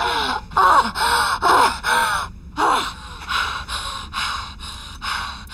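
A woman gasping and panting in sharp pain: short, pitched, catching breaths about two a second that grow quieter toward the end.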